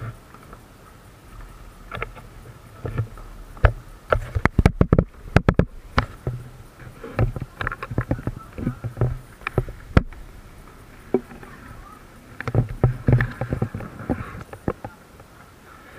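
Kayak paddling: paddle strokes splashing in the water, with many sharp knocks and clicks from the paddles and hull coming in bursts of several strokes.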